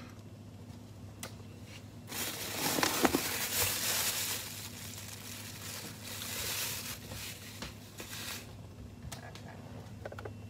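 Crinkling and rustling of plastic packaging being handled, loudest about two to four seconds in and dying away by about eight seconds, over a low steady hum.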